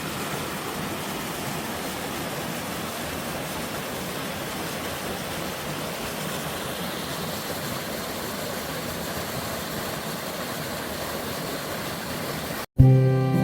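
Valley stream swollen with snowmelt, rushing water making a steady, even hiss. It cuts off near the end as music begins.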